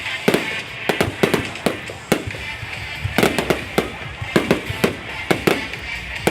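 Fireworks display going off: a quick, irregular string of sharp bangs and crackling pops, several a second, over a steady hiss.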